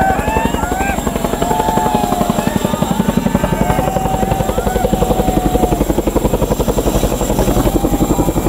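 Boeing CH-47 Chinook tandem-rotor helicopter flying low and close, its twin rotors beating in a fast, steady chop that grows sharper in the second half as it draws nearer.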